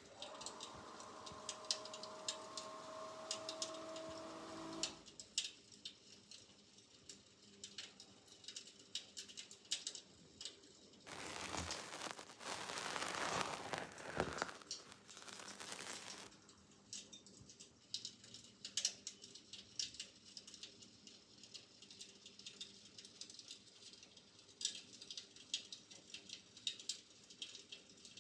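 Litedeer Homes Latitude electric fireplace playing its crackling-fire sound effect: irregular small pops and snaps from a speaker. A louder rushing noise lasts several seconds near the middle, and there are faint steady tones in the first few seconds.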